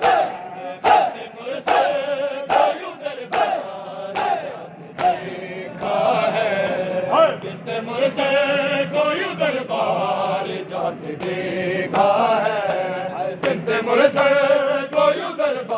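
A group of men chanting a nauha together, with loud chest-beating strikes in time about every 0.8 s over the first five seconds; after that the chanting carries on without a break and the strikes come only now and then.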